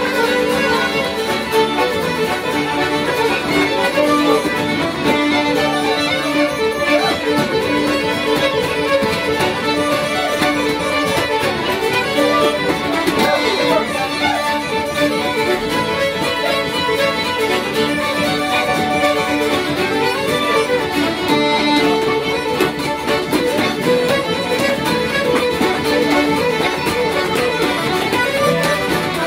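A lively Irish traditional dance tune led by fiddle, playing steadily and without a break.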